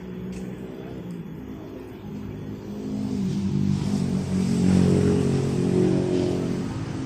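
A motor vehicle's engine that grows louder, is loudest about five seconds in, then fades.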